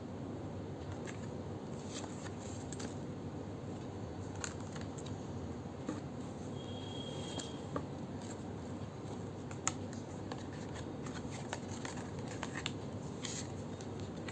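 Oracle cards being handled and flipped through: scattered light clicks and soft card-on-card slides over a steady background hiss.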